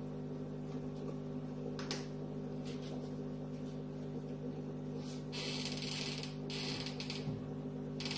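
Aquarium air pump running a sponge filter, humming steadily. About five seconds in a steady hiss joins, dropping out briefly twice.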